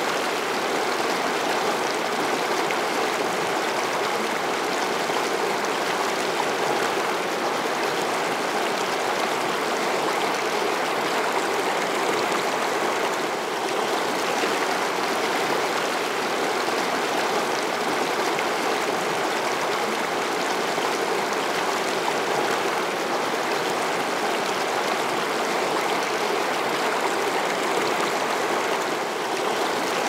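Shallow river rapids rushing and splashing over boulders: a steady, even rush of water with no let-up.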